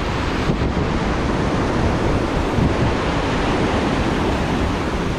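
Floodwater rushing steadily down a swollen creek after heavy rain.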